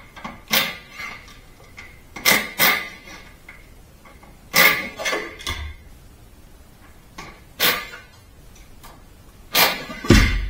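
Irregular metal clanks and knocks, about eight of them, from tools and suspension parts being handled during front suspension removal on a Toyota KE20 Corolla.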